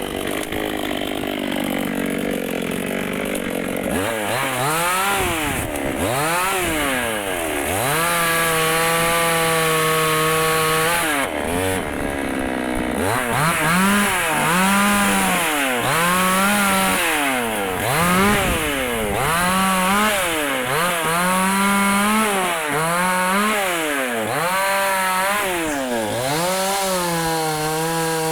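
Dnipro-M two-stroke petrol chainsaw cutting walnut wood. The engine revs up and down over and over, holds high in a few long stretches, and briefly drops to a lower, rougher note near the middle as the chain loads up in the cut.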